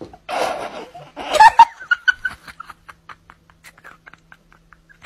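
A person laughing: a breathy burst, a louder peak about a second and a half in, then a run of short giggles that fade away.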